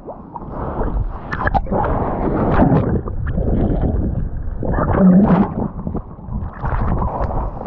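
A big breaking wave crashing over a surfer: turbulent churning whitewater heard muffled from underwater, with splashes and gurgling as he tumbles under and comes back up in the foam.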